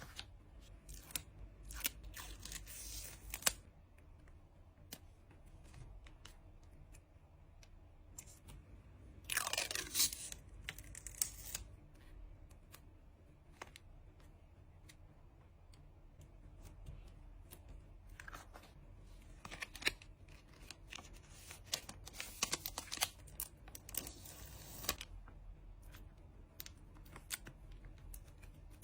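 Hands packing trading cards: paper and plastic packaging tearing and crinkling, with light taps and clicks. The loudest rip comes about nine seconds in, and shorter tearing rustles follow later.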